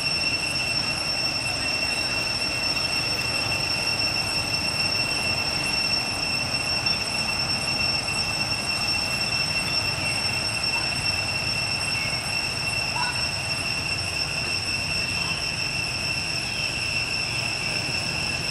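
Steady drone of insects, one unbroken high-pitched whine with overtones, over a low background rumble.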